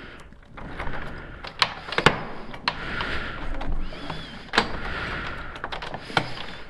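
Scattered knocks and clicks over rustling, the loudest knock about two seconds in: someone moving about a small room and handling things.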